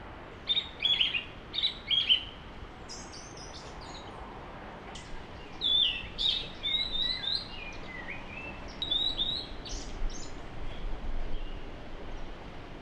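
Small birds chirping in short runs of high notes, some falling in pitch, heard in several clusters over a faint steady background hiss.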